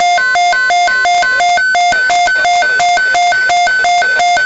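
Electronic alert tone of an emergency alert broadcast: a loud two-tone warble switching rapidly back and forth between a low and a high pitch, about three cycles a second.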